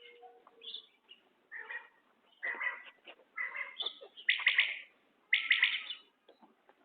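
Common quail calling: a run of short calls that grow louder, the last two the loudest.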